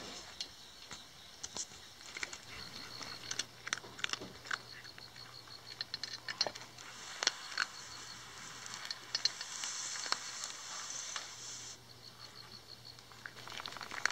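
A cat crunching dry kibble from a stainless steel bowl: irregular crisp crunches and clicks as it chews and picks up the pieces.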